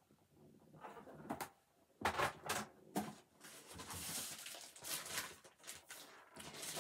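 Handling of hard plastic graded-comic slabs and their bags: a few sharp clacks, then steady plastic rustling.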